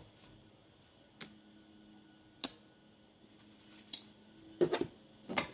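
Tarot cards being handled: a few isolated sharp clicks and taps, about a second apart, then a cluster of short handling sounds near the end, over a faint steady hum.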